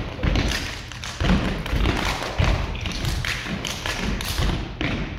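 Stepping: several performers stomping on the stage floor and striking with their hands, a quick run of sharp thumps and taps in rhythm.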